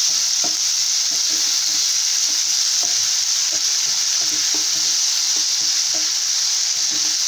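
Onions and tomato pieces sizzling steadily in coconut oil in a nonstick frying pan, stirred with a wooden spatula that makes frequent light scrapes and taps against the pan.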